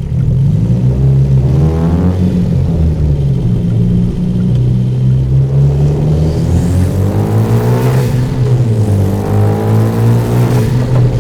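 Turbocharged Hyundai Genesis Coupe pulling under throttle through a free-flow aftermarket exhaust. The engine note gets suddenly louder at the start, then climbs and drops in pitch several times as the car accelerates and the revs fall back, with a faint high whistle rising alongside about halfway through.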